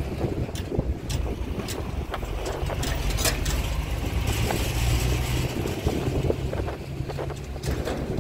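Wind buffeting the microphone, with scattered light clicks and knocks, and a low steady hum through the middle few seconds.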